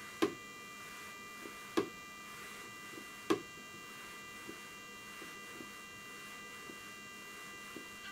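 Steady electrical hum with many overtones from the powered bench setup. Three sharp clicks about a second and a half apart come in the first few seconds, and fainter ticks follow.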